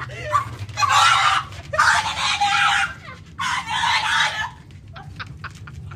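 Three loud, harsh screeching animal calls, each about a second long, over a low steady hum.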